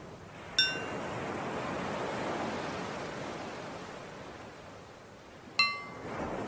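A small bell struck twice, five seconds apart, each strike ringing out and fading; it marks the switch between breathing in and breathing out. Behind it, ocean waves wash in a steady hiss that swells and ebbs.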